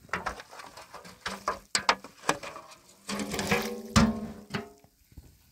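A large dimpled metal tray being handled on gravel: a run of scraping clicks and knocks as it is scrubbed and shifted. About three seconds in it rings with a steady tone, and a hard knock comes as its rim is set on the stones.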